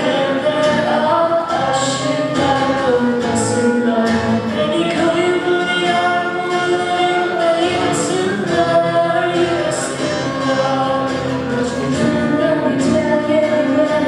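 A group of voices singing a Turkish song together.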